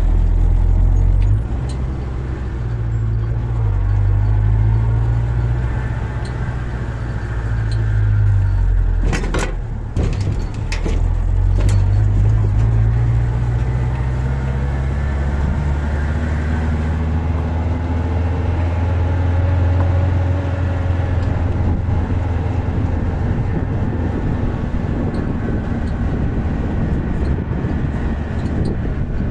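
A vehicle driving slowly along a rough village road: the engine running with its pitch rising and falling as speed changes, over tyre and road noise, with a few sharp knocks from bumps about a third of the way in.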